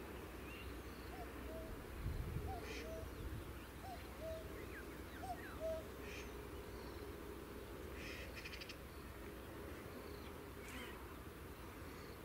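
Wild birds calling: a low two-note call repeated four times, about a second apart, over the first few seconds, with scattered short, higher chirps and songs throughout. A soft low thump about two seconds in.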